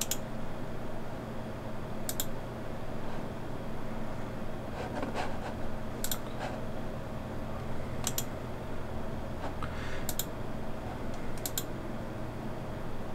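Computer mouse clicking, about six single sharp clicks spaced roughly two seconds apart, over a steady low hum of a running desktop computer.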